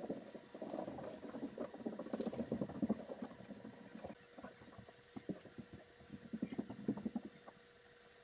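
Leather holster straps rustling and rubbing as they are handled and fitted with small hardware, in irregular bunches of soft scuffs and small clicks, busiest in the first three seconds and again near the end.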